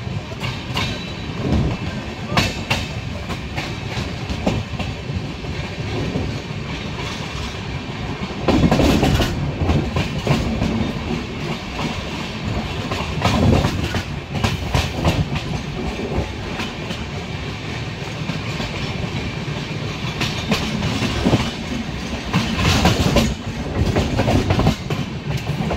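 Train wheels clattering over rail joints and points, over a steady rumble of the moving coaches. The clatter swells louder a third of the way in, around halfway, and again near the end.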